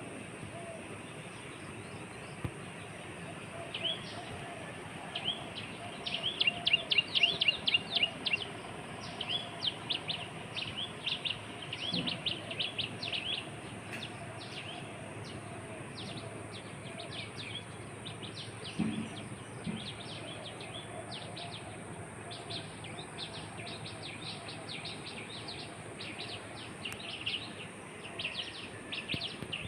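Small birds chirping: rapid runs of short, high chirps, loudest in a quick burst several seconds in, then continuing on and off. A steady high hiss runs beneath them.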